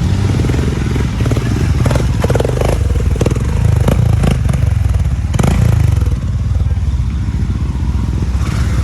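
Motorcycle engine running on a rough off-road track, with a string of clattering knocks between about two and six seconds in.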